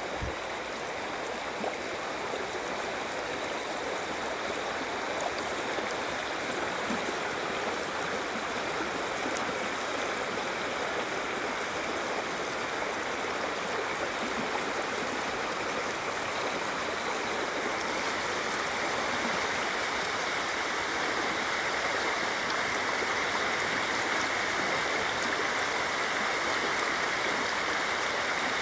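River water rushing and gurgling over rocks, a steady even rush that grows slightly louder over the second half.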